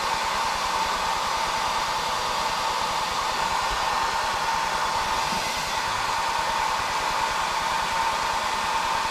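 Hair dryer running steadily on high: an even rush of air with a steady whine.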